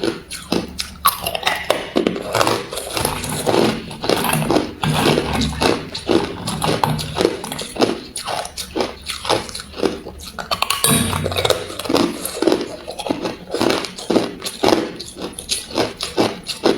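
A person biting and chewing ice: continuous crunching, several crunches a second.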